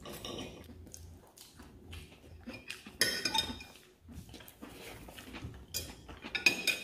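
A fork and knife clinking and scraping on a ceramic plate during eating, with a cluster of louder clinks about three seconds in and more near the end.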